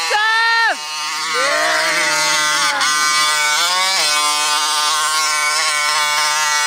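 Small two-stroke gas engine of a 1/5-scale RC monster truck revving up and down as it plows through snow. The pitch falls about a second in, swings low and high again, then holds high for the last few seconds.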